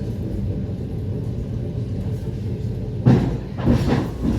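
Passenger train carriage in motion: a steady low rumble from the wheels on the track. About three seconds in come a few louder knocks, the wheels clattering over rail joints.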